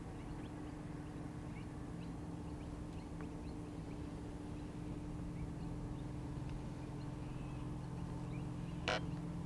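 A faint, steady low hum made of a few even tones that do not change in pitch or level, with scattered faint ticks and one short click about nine seconds in.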